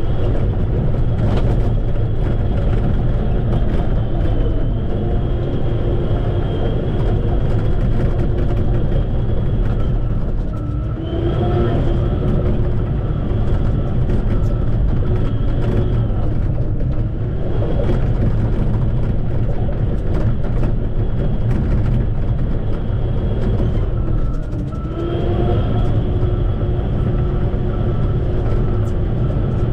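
Bulldozer's diesel engine running steadily under load, with a high whine over it. The whine eases off briefly about every seven seconds.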